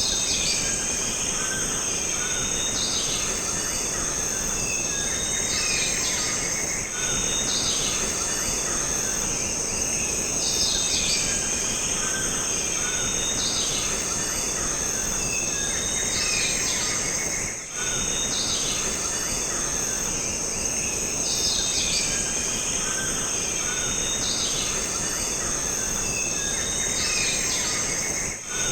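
Jungle ambience: a steady high-pitched insect drone, with birds chirping over it in short calls that recur every few seconds.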